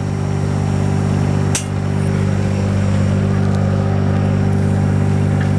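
Weedoo workboat's engine idling steadily while its hydraulic front-end loader sits still, with a single sharp click about one and a half seconds in.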